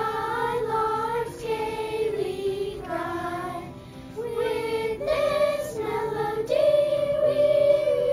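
A group of children singing together on a melody, holding long notes, with a short break about four seconds in.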